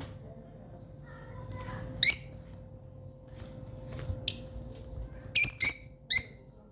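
Pet lovebirds giving short, sharp, high-pitched chirping calls: one about two seconds in, another near four seconds, then three in quick succession near the end.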